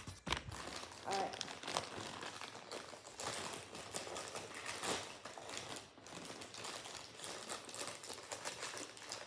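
Package wrapping rustling and crinkling as it is handled and opened, in irregular crackles throughout.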